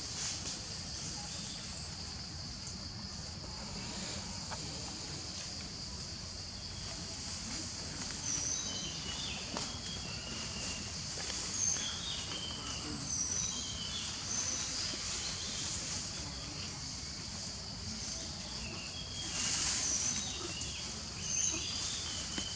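Steady high-pitched insect chorus, with scattered short chirps and a low outdoor rumble; a brief louder rustle comes near the end.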